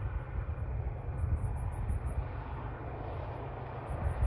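Outdoor night ambience: a steady low rumble, with faint high-pitched chirping in quick pulsed runs about a second in and again near the end.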